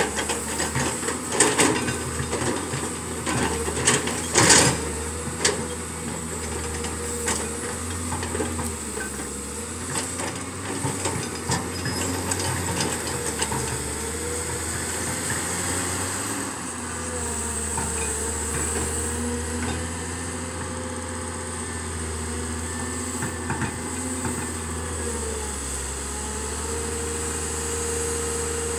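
Komatsu hydraulic excavator's diesel engine running with a steady drone and a high whine. Over the first nine seconds or so, a string of sharp knocks and cracks, the loudest about four seconds in, as the bucket works into brush and small trees.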